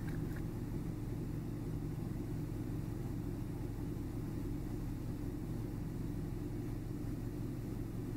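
A vehicle engine idling steadily, a constant low hum with no change in speed.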